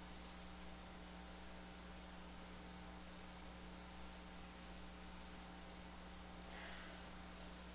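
Faint steady electrical mains hum with background hiss. A brief faint noise comes about six and a half seconds in.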